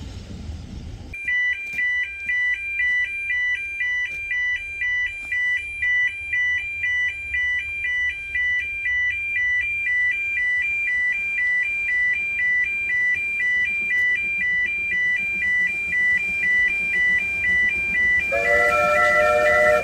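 Level crossing warning alarm sounding a two-tone electronic warble, switching between two pitches in a steady pulse about one and a half times a second, warning road traffic that a train is approaching. Near the end a steam locomotive's whistle joins in, a chord of several notes, louder than the alarm.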